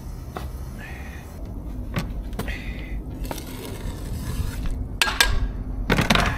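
Cookware and dishes being handled: scattered knocks and clinks with rustling in between, and a louder cluster of knocks near the end.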